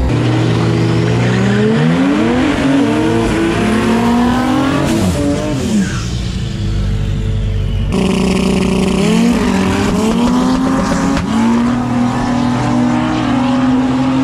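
Turbocharged L67 3.8 L V6 in a Holden Commodore ute at full throttle on a drag-strip pass, its pitch climbing hard as it accelerates and dropping back at the gear changes. About eight seconds in the sound cuts abruptly to another take of the engine running hard and climbing again.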